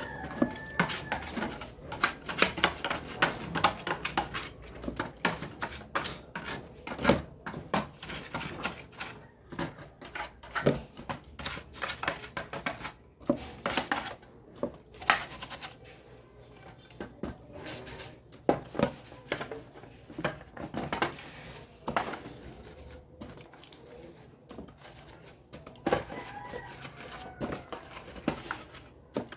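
Irregular clicking, clinking and knocking of small hard parts being handled and worked on during a blender repair.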